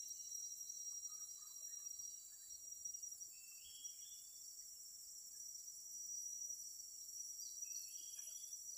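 Steady, faint, high-pitched insect chorus, with two short rising chirps, one about three and a half seconds in and one near the end.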